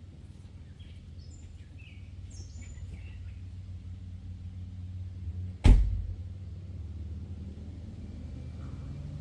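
CAT 308E2 mini excavator's diesel engine idling with a low, steady hum. Birds chirp briefly in the first few seconds, and a single loud thump comes a little past halfway.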